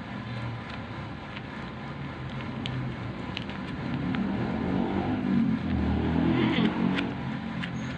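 A motor vehicle engine running, its low drone swelling about four seconds in and easing off near the end, like a vehicle passing by.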